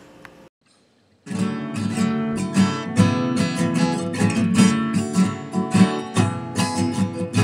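Outro music with strummed guitar, starting after a moment of silence about a second in.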